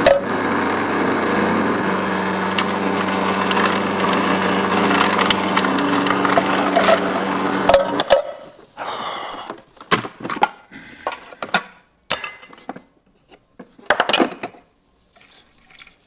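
Magimix food processor running as red cabbage is fed through it, a steady motor hum with crunching, which cuts off abruptly about halfway through. Then scattered knocks and clatter as the processor's plastic bowl is handled and lifted off.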